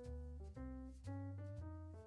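Instrumental background music: sustained melodic notes over a bass line, the notes changing about twice a second.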